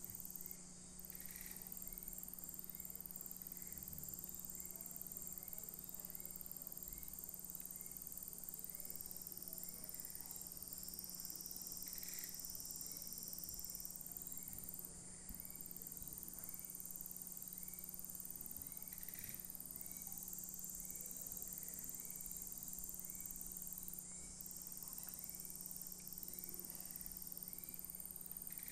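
Insects chirring in grass: a steady high shrill with small chirps repeating about once a second, over a faint steady low hum.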